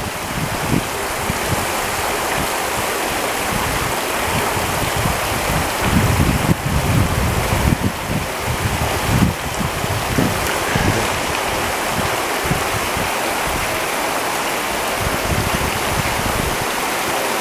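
Small, shallow woodland creek babbling steadily as it flows over a log and stones. Irregular low buffeting sounds on the microphone around the middle.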